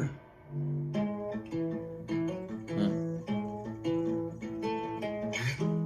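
Acoustic guitar picking a melody of single plucked notes, coming in about half a second after a brief lull.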